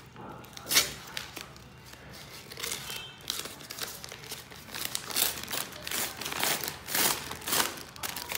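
Scissors cutting through a brown paper mailer envelope and the kraft paper crinkling as it is handled and pulled open, in a run of short rustling bursts that grow busier and louder in the second half. The loudest single crackle comes just under a second in.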